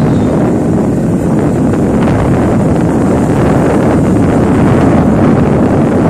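Loud, steady wind buffeting the phone's microphone on a moving motorcycle, with the motorcycle running and its tyres on the concrete road underneath.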